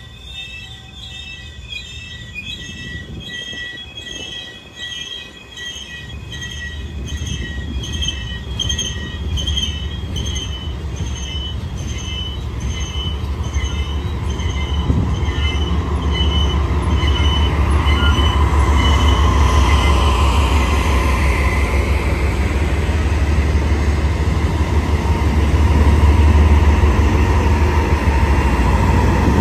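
BNSF diesel freight train approaching and passing, its low rumble growing louder over the first half and staying loud. Over the first half a ringing of several high tones repeats about twice a second, then fades out.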